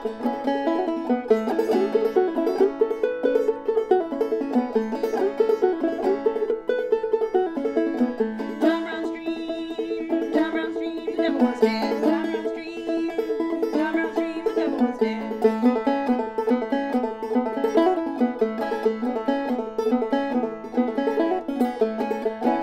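Open-back five-string banjo played clawhammer style at full speed: a steady, driving stream of down-stroked melody notes and brushed strums over the ringing drone string. The banjo is in standard open-G tuning (gDGBD), capoed at the second fret.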